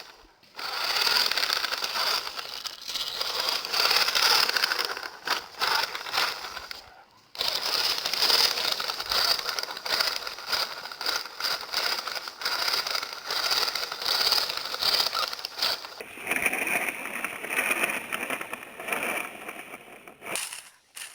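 Toy RC rock crawler's small electric motor and plastic gearbox whirring with a crackly edge as it drives. It stops briefly about seven seconds in, and the sound changes about sixteen seconds in.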